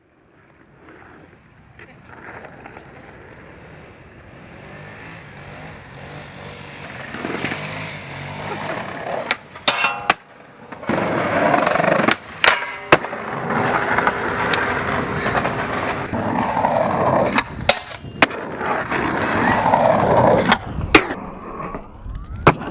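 Skateboard wheels rolling on pavement, growing louder over the first several seconds. Several sharp cracks of tail pops, landings and board impacts break the rolling across a series of short clips, some of which cut off abruptly.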